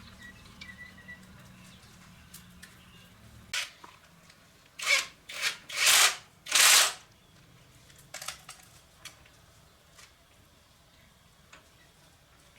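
A low hum fades out in the first few seconds, then five short bursts of hissing, the last two the longest and loudest, with a few light clicks afterwards.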